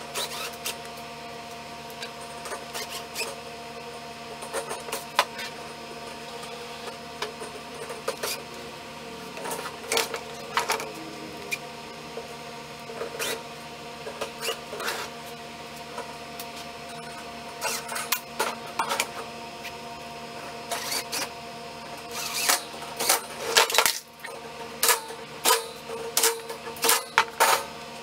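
Scattered metal clicks and clinks as the chrome wire grille and other parts of a steel floor fan are handled and fastened, over a faint steady hum. The clicks come thick and fast near the end.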